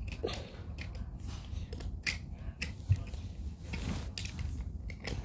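Scattered sharp plastic clicks and knocks as hands work the battery compartment on the back of a battery-powered dancing Minion toy, closing it after the batteries are shown. The loudest knock comes about three seconds in.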